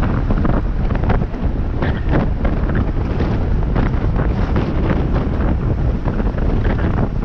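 Wind buffeting the microphone of a GoPro Hero7 White action camera while cycling: a loud, continuous rumble that flutters in strength.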